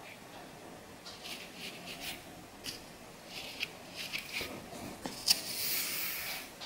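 Fine-toothed metal comb scraping across a scalp and through hair: a run of short scratchy strokes, with a sharp click about five seconds in followed by a longer scrape.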